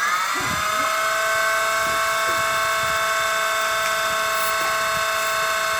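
Small electric motor and rotors of a micro 1/72-scale RC helicopter spinning up and settling into a steady whine within the first second.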